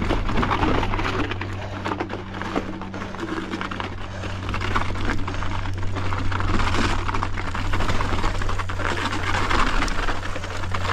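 Mountain bike being ridden over a snowy trail: continuous tyre noise with a dense run of rapid clicks and rattles from the bike.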